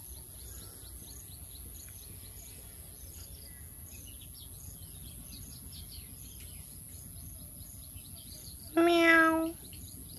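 A kitten gives one short meow, under a second long, near the end, over steady chirping in the background.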